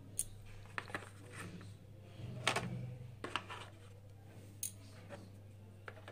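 Eggs set one by one into a clear plastic egg storage box: a series of light clicks and taps of eggshell on plastic, the loudest about halfway through. A low steady hum runs underneath.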